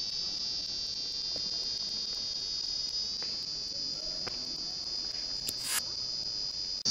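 Homemade light-to-sound device, a small electronic noisemaker that turns light into sound, giving off a steady high-pitched electronic whine with several overtones. A short burst of hiss comes about five and a half seconds in.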